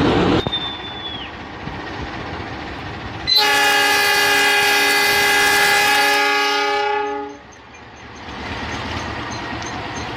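KAI locomotive horn sounding one long blast of about four seconds, a salute from the driver, over the running noise of the passing train.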